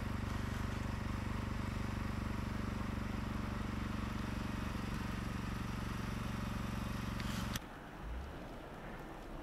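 A vehicle engine idling steadily with an even low hum. It cuts off abruptly near the end, leaving only a faint hiss of wind.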